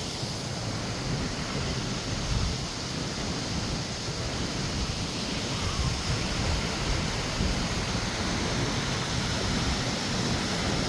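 Steady rushing of a mountain creek and its small falls, with wind rumbling irregularly on the microphone.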